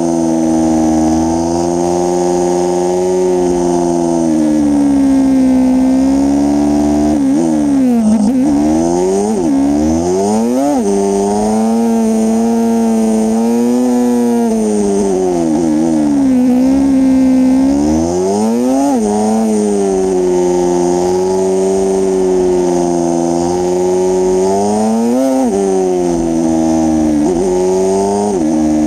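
Motorcycle engine heard from on board while riding, its pitch rising and falling with the throttle, with several quick sharp swoops up and down.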